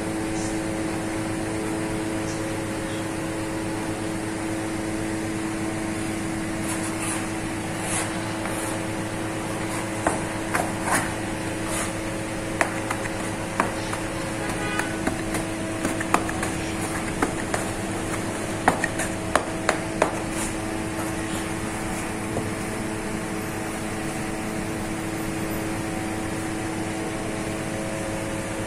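Steady machine hum with a few fixed tones, from bakery equipment running. From about ten to twenty seconds in come scattered sharp taps and knocks as dough is worked on a floured bench with a plastic dough scraper.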